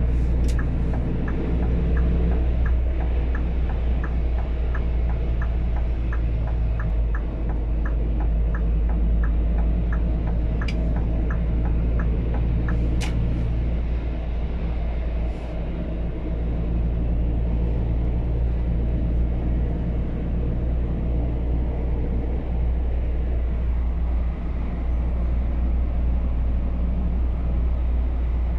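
The biogas Scania P280 truck's engine runs steadily at motorway speed with road rumble, heard inside the cab. A turn-signal indicator ticks about twice a second through the first half, and two sharp clicks come near the middle.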